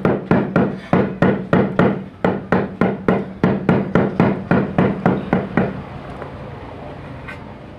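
Rubber mallet tapping a large floor tile to seat it into a dry-pack mortar bed: quick, even knocks at about three or four a second, which stop about two-thirds of the way through.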